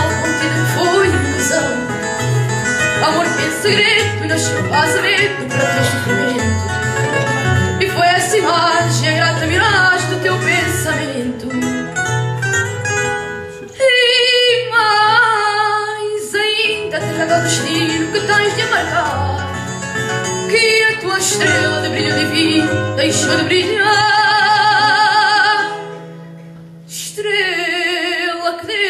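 A boy singing a song into a microphone, accompanied by a Portuguese guitar and a classical guitar with plucked notes and a steady bass line. Near the end he holds a long note with vibrato, then the music drops away briefly before voice and guitars come back in.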